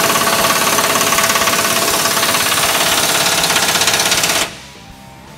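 Impact wrench hammering steadily on a bolt under the truck, a dense fast rattle that stops abruptly about four and a half seconds in.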